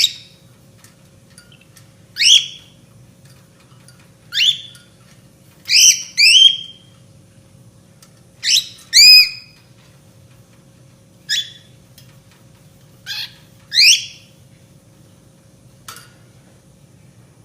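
Caged bird giving loud, short upward-sweeping calls, about a dozen, some in quick pairs, over a faint steady low hum.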